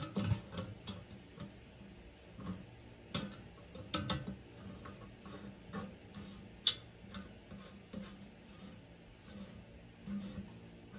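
Irregular metallic clicks and taps as a brass nut is worked onto the copper cooling coil's fitting against a stainless steel pot, with a few sharper knocks about three, four and nearly seven seconds in.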